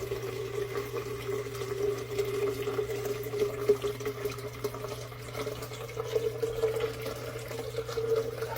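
Water pouring steadily into a cat water fountain's reservoir as it is filled, with a slowly rising pitch.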